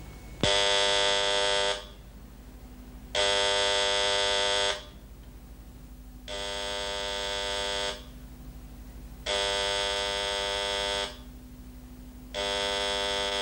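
Telephone with an electric buzzer-type ringer ringing five times, about 1.5 s per ring and every 3 s, unanswered, over a steady low hum.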